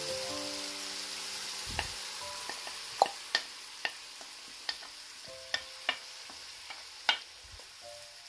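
Food frying and sizzling in a pan while a spoon stirs it, knocking sharply against the pan about eight times.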